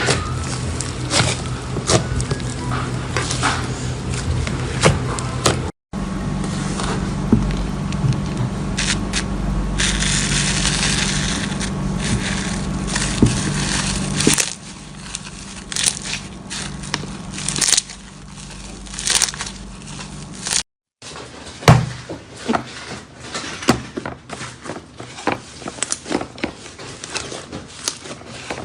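Slime being squeezed, poked and stretched by hand: many sharp sticky crackles, pops and clicks, in three clips cut together.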